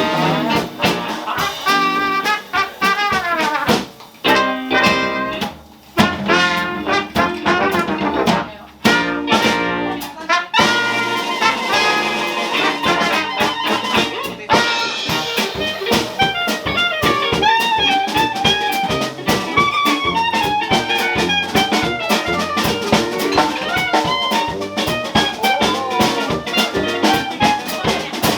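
Live Dixieland jazz band playing instrumentally, with trumpet and trombone leading over a drum kit. The band drops out briefly a few times in the first third, then plays on continuously.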